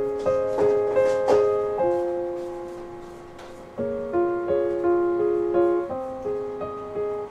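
Soft background piano music: single notes and chords struck one after another, each left to ring and fade.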